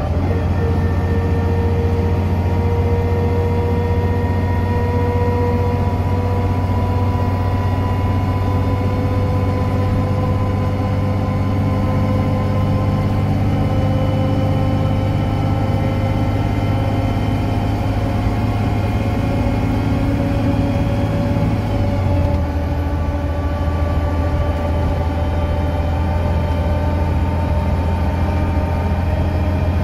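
DAF DB250 Lowlander double-decker bus heard from inside the cabin at speed: a deep engine drone under a loud whine from the axles, the whine slowly rising in pitch as the bus gathers speed. About 22 seconds in the engine note steps down while the whine keeps climbing, as the four-speed Voith automatic gearbox changes up.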